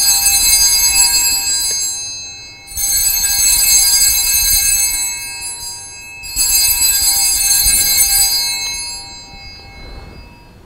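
Altar bells rung three times at the elevation of the host after the words of consecration, a few seconds apart. Each ring is a bright jangle of many small high-pitched bells that fades away over a couple of seconds.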